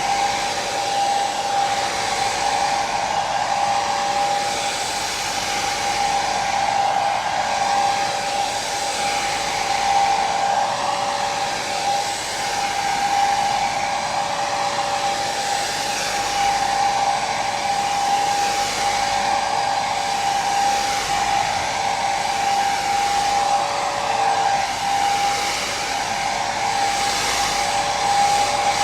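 Hair dryer running continuously: a steady blowing hiss with a constant motor whine.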